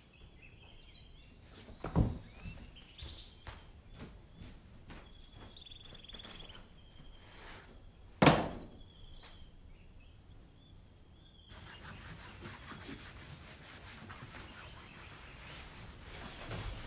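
Birds chirping in the background ambience, broken by two loud, sudden thuds, one about two seconds in and a heavier one about eight seconds in. After about eleven seconds a steadier, denser background noise takes over.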